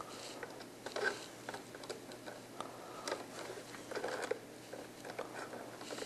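Linesman's pliers gripping and twisting ground wires together: scattered small clicks and scrapes, with a few louder ones about a second in and again near the middle.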